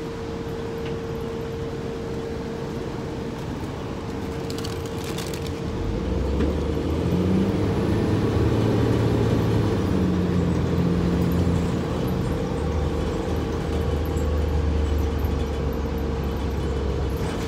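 Cabin sound of a 2005 Gillig Low Floor transit bus under way: the engine's low drone with a steady whine over it. About six seconds in the engine gets louder and pulls harder as the bus accelerates.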